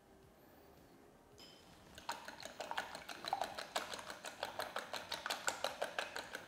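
Wire whisk beating eggs and cream in a glass bowl: its wires click quickly and evenly against the glass, about seven strokes a second, starting about two seconds in.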